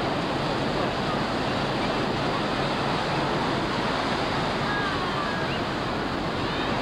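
Ocean surf breaking and washing up the beach in a steady rush of white water.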